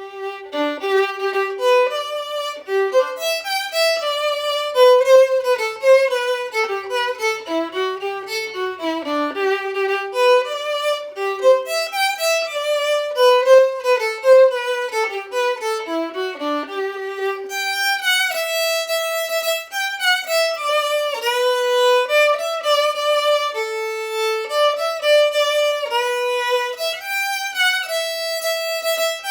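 Solo instrumental music: one melody line with no singing, quick running notes through the first half, then slower, longer held notes from a little past the middle.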